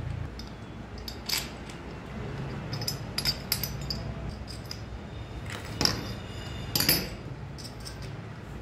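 Small metallic clicks and clinks as a bolt is pushed through a pulley wheel and its red bracket by hand; a handful of sharp clicks spread out, the two loudest about six and seven seconds in.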